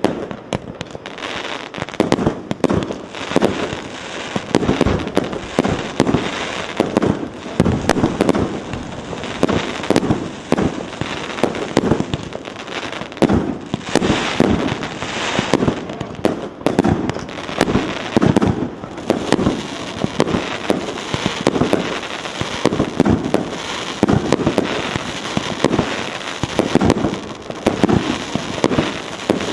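A 150-shot, 1.2-inch fireworks cake firing without a break: a rapid string of launch shots and aerial bursts, several a second.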